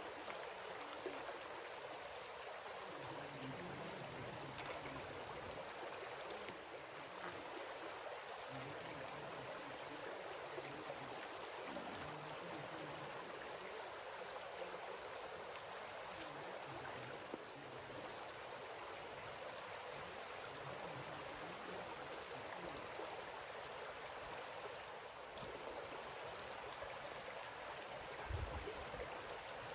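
Steady rush of a stream of running water, with a short low thump near the end.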